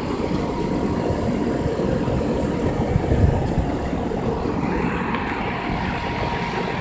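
2001 Goodman air conditioner running with a steady, even noise and a faint steady whine above it.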